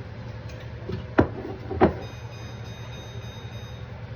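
Two sharp knocks about two-thirds of a second apart over a steady low hum, followed by a faint high-pitched steady tone lasting about two seconds.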